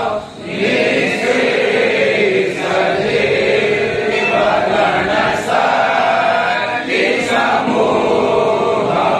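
A group of men singing a Hindu aarti (devotional hymn) together in unison, chant-like, with short pauses between phrases.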